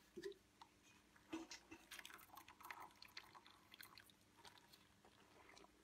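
Faint wet squelching and light clicks of a wooden spoon stirring and lifting soaked cloth in a stainless steel pot of dye, over a faint steady hum.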